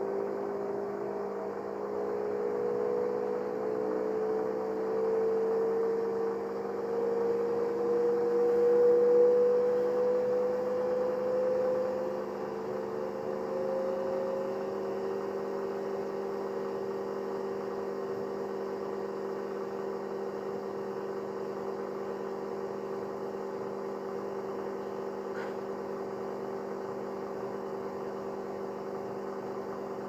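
Whirlpool FL 5065 front-loading washing machine running its spin cycle, the motor and turning drum making a steady, hum-like whine. The pitch creeps up over the first dozen seconds and gets louder around nine seconds in, then holds steady.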